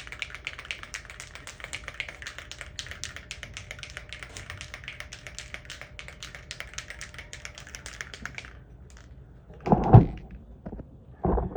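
Aerosol spray-paint can being shaken, its mixing ball rattling in rapid clacks, several a second, for about eight seconds before stopping. A loud thump follows about ten seconds in.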